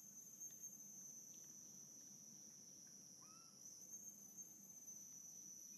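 Faint, steady high-pitched drone of insects, with a single brief chirp about three seconds in.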